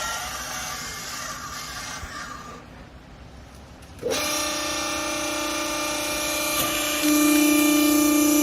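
Vertical clothing baler running: a noisy mechanical stretch, then the machine's motor and hydraulic pump start a steady whine about four seconds in, which jumps louder about three seconds later as it works under load.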